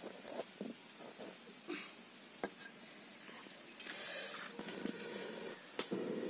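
Scattered light knocks and clinks as an iron kadai is set on a brick wood-fire stove. Near the end comes a steady breathy rush as air is blown through a metal blow pipe into the fire under the pan to fan the flames.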